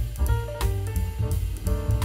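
Instrumental background music with a drum kit and a moving bass line.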